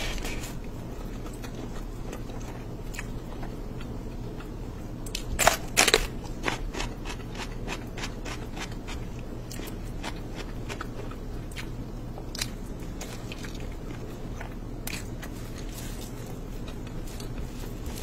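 Close-up eating sounds: chewing and biting with scattered crisp clicks, and a louder burst about five and a half seconds in, over a steady low hum.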